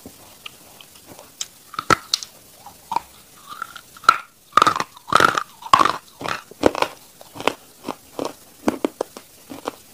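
A person biting and chewing a hard, dark grey chunk of chalk close to the microphone. It makes sharp, irregular crunches that come thickest and loudest in a run around the middle.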